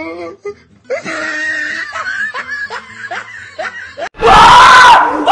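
A person laughing in a run of short, high-pitched bursts. About four seconds in, a sudden, much louder outburst of yelling from several voices takes over.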